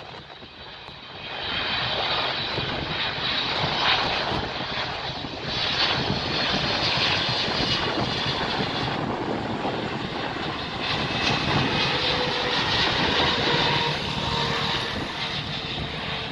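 Aircraft engines running loud and steady, swelling up about a second and a half in.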